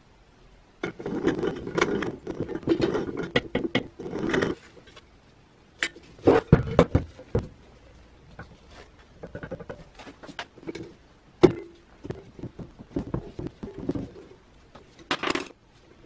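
Metal parts of a rusty hand coffee grinder being handled and taken apart: a stretch of rattling scrape in the first few seconds, then scattered clinks and knocks of metal on metal and on the bench.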